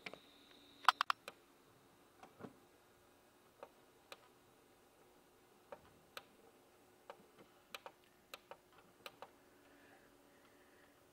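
Irregular sharp clicks: a quick run of three loud ones about a second in, then scattered single clicks.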